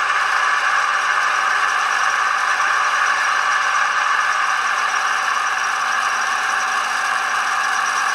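Sound-decoder diesel engine sound from a PIKO SM31 model diesel locomotive's onboard speaker, running steadily at an even pitch, with little bass.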